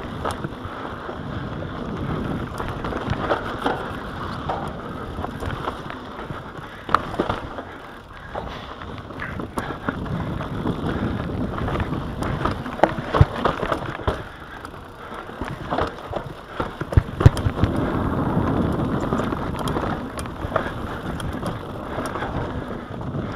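Full-suspension mountain bike running fast down a dry dirt singletrack: steady tyre and rushing noise, with the chain and frame rattling and knocking over bumps. A cluster of sharper knocks comes about seventeen seconds in.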